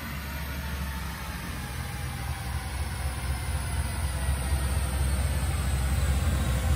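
Supercharged Mustang GT's 4.6-litre three-valve V8 running on a chassis dyno under load, growing steadily louder as it pulls up through the revs.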